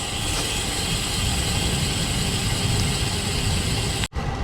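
Strong wind rushing over a moving bicycle's action camera microphone, a steady low rumble with hiss, mixed with tyre noise. It drops out for an instant just before the end.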